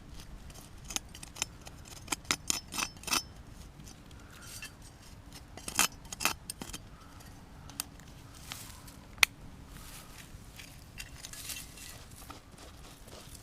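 Metal machine-gun ammunition belt links and cartridges clinking and scraping as they are dug out of the soil and handled. There is a quick run of sharp clinks about two to three seconds in, another cluster around six seconds, a single sharp clink a little past nine seconds, and softer scraping near the end.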